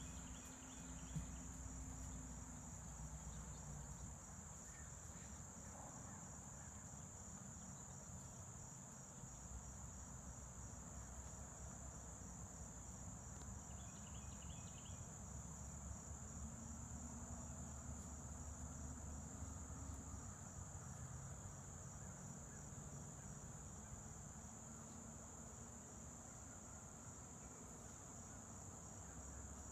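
Faint, steady, high-pitched chorus of crickets trilling without a break.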